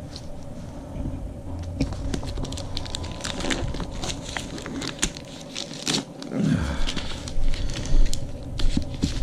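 Paper mailing package being torn open by hand and its wrapping crinkled: a run of sharp rustles, crackles and tears, loudest near the end.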